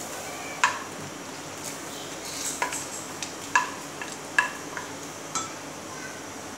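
Wooden spoon scraping and knocking against a plate, pushing fried nuts and dates into a pan of milk: a sharp tap about once a second with light scraping between.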